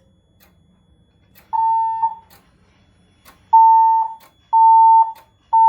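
Siemens Desigo Fire Safety Modular fire alarm sounding its evacuation tone: a steady mid-pitched beep once, then, after a pause, three half-second beeps in a row. This is the temporal-3 evacuation pattern, coming between the alert message and the voice evacuation message.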